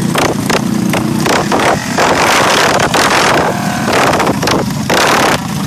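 Small mini bike engines running close by, with loud uneven noise that could be wind buffeting the microphone.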